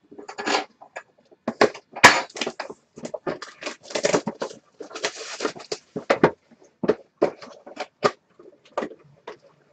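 Plastic shrink wrap crinkling and tearing as it is stripped off a sealed cardboard box of hockey cards, mixed with irregular taps and clicks of the box being handled. A longer stretch of crinkling comes about four to five and a half seconds in.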